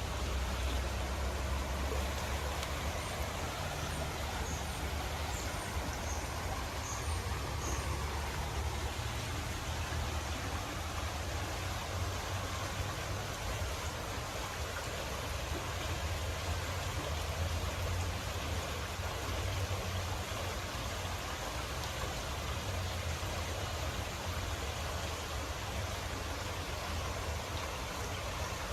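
Steady rush of flowing water, an unbroken noise with a strong deep rumble underneath.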